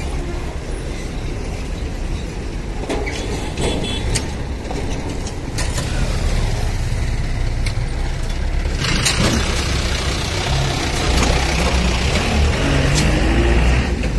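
Mixed road traffic (trucks, buses, motorbikes and cars) crossing a rail crossing, with engines rumbling steadily and a few sharp knocks. A loud rushing hiss sets in about nine seconds in and continues.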